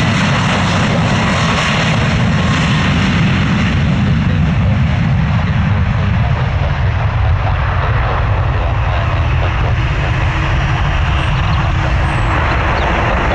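Airbus A330 twin jet engines at high thrust on its takeoff roll down a wet runway, a continuous loud jet roar.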